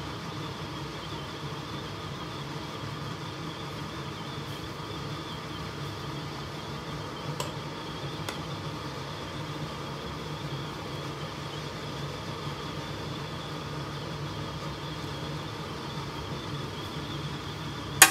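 Steady fan-like kitchen hum while a pan of rice-vermicelli soup simmers on a gas burner. Two faint clicks come near the middle as the noodles are lifted with a utensil, and a sharp click comes at the very end.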